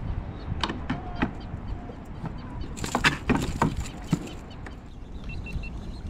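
Sharp clicks and knocks of fishing gear being handled on a kayak, a few early and a louder cluster about three seconds in, over a steady low rumble of wind and water.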